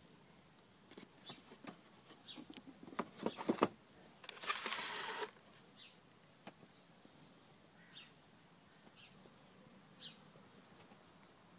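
Silver cardboard retail box of an Aiwa HS-PX1000 cassette player being handled: a run of light knocks and taps, then about a second of rubbing or sliding noise as the box is moved, with faint short high chirps scattered through.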